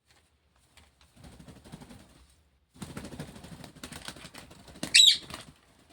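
Indian ringneck parrot moving and fluttering, a rapid run of rustling clicks in two spells, then one short loud screech about five seconds in.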